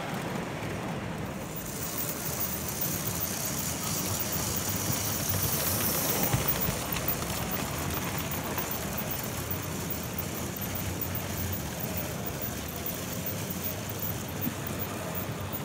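Gauge 1 model train running on the layout's track, a steady rumble and rattle mixed with the general background noise of the exhibition hall. A brighter hiss swells in about two seconds in and fades after about six.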